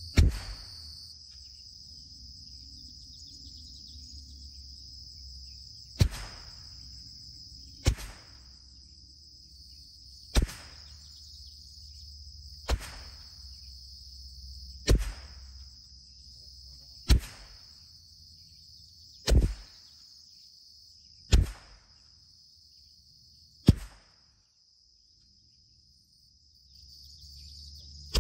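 A CZ 457 MTR .22 LR rimfire rifle firing Eley Contact rounds one at a time: about ten sharp cracks, the first followed by a pause of nearly six seconds, then a shot roughly every two seconds, with one more at the very end. Insects keep up a steady high chirring throughout.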